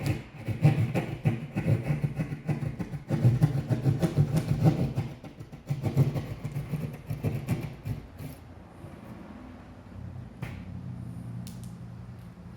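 A saw cutting through drywall for an outlet box, in three bursts of rapid strokes that stop about eight seconds in. After that only a faint steady hum remains, with a sharp click near the end.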